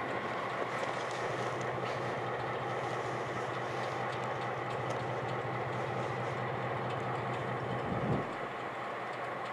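Diesel switcher locomotives idling with a steady low engine hum. About eight seconds in there is a short low thump, after which the hum eases slightly.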